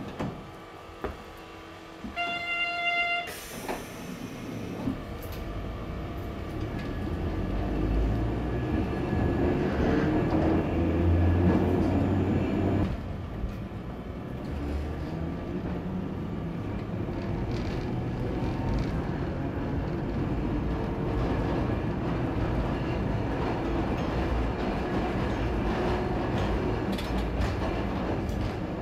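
Old streetcar running, heard from inside the car: a low rumble of motor and wheels on the rails that swells about eight seconds in and then settles to a steady run. Before it moves off, a short pitched signal tone sounds for about a second.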